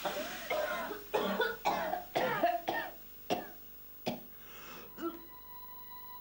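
A girl retching and gagging over a toilet bowl, forcing herself to vomit with her fingers down her throat: a quick run of throaty heaves and coughs, then three more spaced-out retches. Steady music tones come in near the end.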